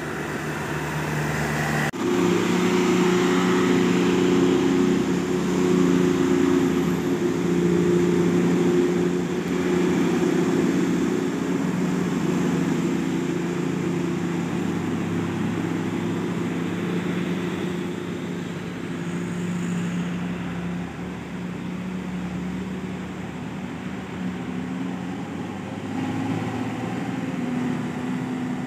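Diesel engine of a large intercity bus running past on a mountain road, a steady low drone that sets in abruptly about two seconds in and eases off after about twenty seconds.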